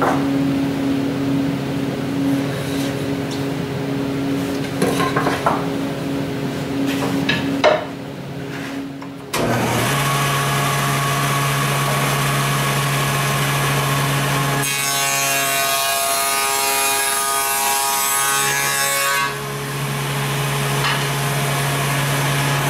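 Table saw running with a steady motor hum that steps up sharply about nine seconds in. A few seconds later the blade cuts through a strip of wood, a louder, noisier stretch lasting about four and a half seconds, and then the saw runs free again.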